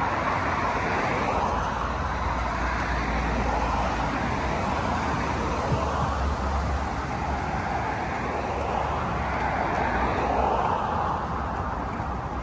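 Road traffic: cars passing on a nearby road, a steady tyre and engine noise that swells as vehicles go by near the start and again about ten seconds in.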